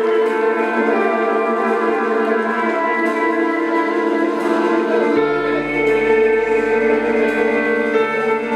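Live jazz-fusion band music with long held chords, a deep bass line coming in a little after halfway.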